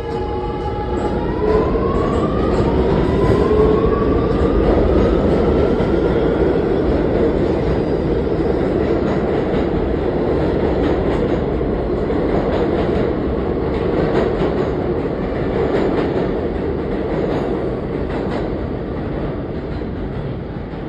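R211 subway train pulling out of the station. Its motor whine rises in pitch over the first few seconds as it picks up speed, then the rumble and clatter of wheels on the rails carries on and slowly fades as the train leaves.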